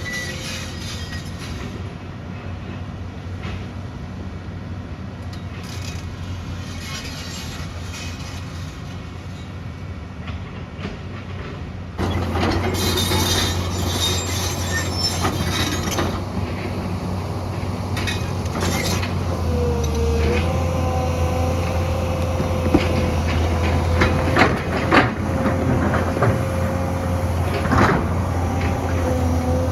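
Excavator's diesel engine running steadily under load, with a steady whine joining about two thirds of the way through and sharp metallic clanks near the end. The sound jumps louder and brighter about twelve seconds in.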